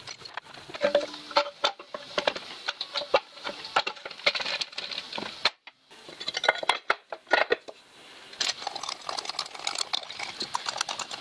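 Clinks, knocks and clatter of metal parts and tools being handled on a Chaise Vega stationary engine during reassembly. There is a moment's silence about halfway through, and sharper taps near the end as a mallet is used on the engine.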